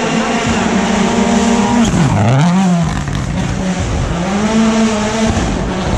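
Ford Puma Rally1 car's turbocharged engine running hard at high revs; the revs drop sharply about two seconds in, climb briefly, dip again and rise back up, as the driver lifts and gets back on the throttle.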